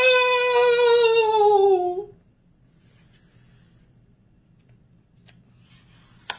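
A woman's voice holding one long, drawn-out "Nooo", sliding slowly down in pitch and breaking off about two seconds in. Then quiet, with a few faint taps as a picture-book page is handled near the end.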